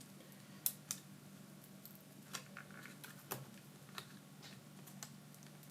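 A handful of light, sharp clicks and taps at irregular intervals from hands working a laptop battery's cable connector onto the mainboard, over a faint steady hum.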